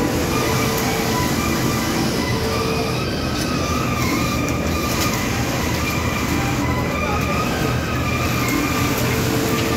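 Industrial sewing machines running in a garment factory: a loud, steady mechanical drone, with short tones coming and going.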